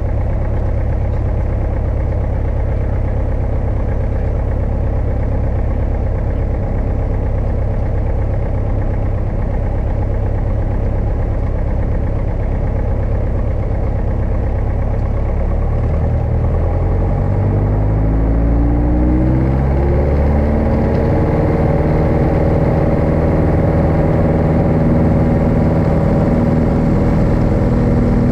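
Single-engine light aircraft's engine and propeller heard from inside the cockpit, running steadily at low revs. About halfway through, the revs rise smoothly over a few seconds and hold at a higher, steady pitch as the throttle is opened for the takeoff run.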